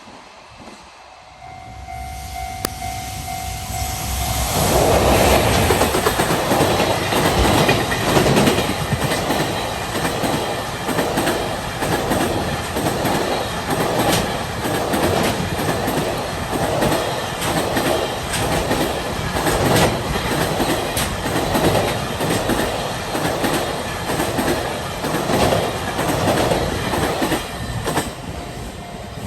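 A freight train passing a level crossing at speed, its wagon wheels clattering over the rail joints in a steady rhythm about once a second. A level crossing alarm sounds as a steady tone before the train arrives, about four seconds in, and can be heard again as it clears near the end.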